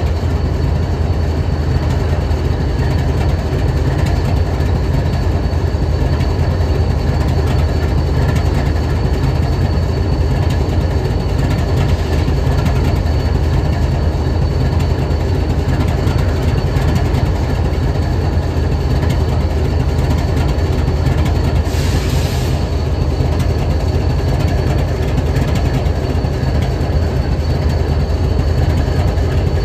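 BNSF 7876 diesel-electric locomotive idling: a steady, even low engine rumble with a faint high whine over it. A short hiss breaks in briefly near the end.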